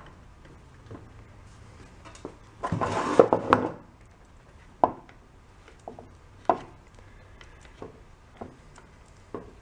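Engine parts handled on a metal workbench while the crankcase cover of a torn-down Kohler twin is moved: a scraping rattle lasting about a second, about three seconds in, then a few light knocks and clicks spaced a second or so apart.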